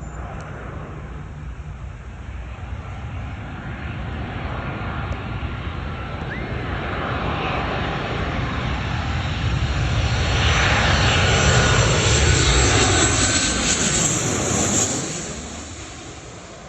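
Boeing 737-800's CFM56 turbofan engines on landing approach: a low rumble with a high whine above it, growing louder as the jet comes near, loudest about two-thirds of the way through, then falling away quickly as it passes.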